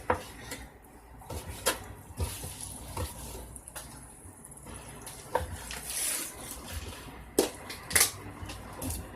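Kitchen knife slicing raw boneless chicken thighs into small strips on a cutting board. The blade knocks against the board at irregular intervals, a second or two apart, with two sharp knocks close together near the end.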